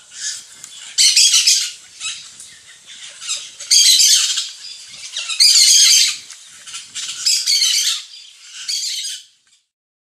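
Ducklings peeping: rapid, shrill peeps in repeated bursts, the louder ones coming roughly every one and a half seconds, dying away shortly before the end.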